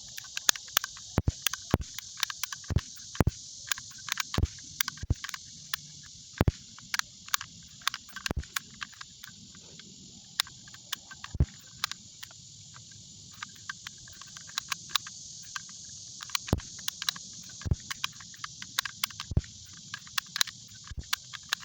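Paper caps on a cap roll going off in an irregular string of sharp pops, dozens of them, thicker in the first half and again near the end. A steady high chirring of insects runs underneath.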